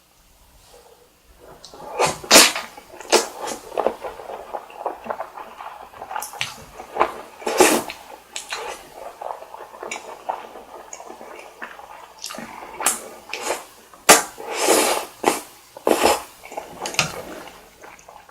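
Close-miked eating sounds: wet chewing and smacking of spicy carbonara stir-fried noodles and chewy rice cake, as a rapid run of sticky clicks with a few longer, louder wet bursts. It starts after about a second of near quiet.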